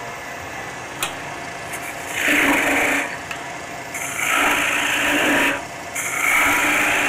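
Spindle gouge cutting into a spinning maple spindle on a wood lathe, shaping a bead: three hissing cuts of about a second and a half each, starting about two, four and six seconds in.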